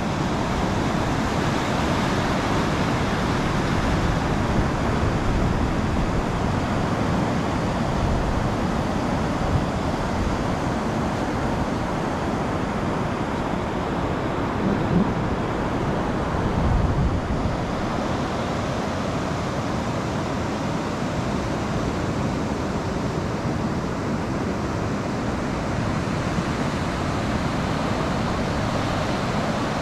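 Ocean surf breaking and washing in over a flat sandy beach, a steady rushing sound, with wind buffeting the microphone in a couple of brief low gusts about halfway through.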